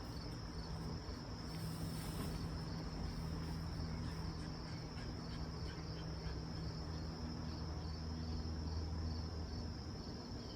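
Crickets chirping in a steady high trill, over a low steady hum.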